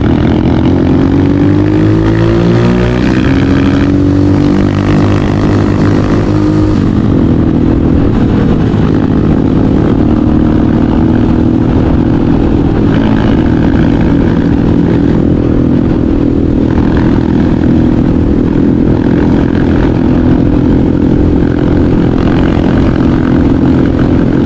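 Motorcycle engine pulling under load, its revs rising and dropping at gear changes about three and seven seconds in, then running steadily.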